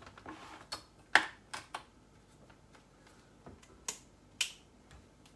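A series of sharp plastic clicks and knocks from handling a countertop grinding appliance, most of them in the first couple of seconds and two more later. No motor is heard running, and the appliance then appears not to work.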